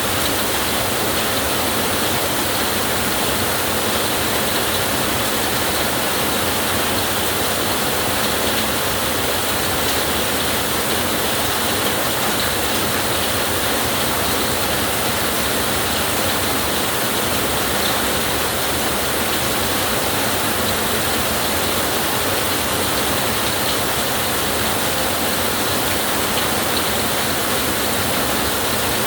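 Heavy rain falling steadily, a dense even hiss with no break and no thunder.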